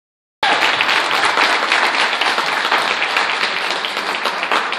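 Audience applauding: dense clapping that cuts in suddenly about half a second in and begins to die down near the end.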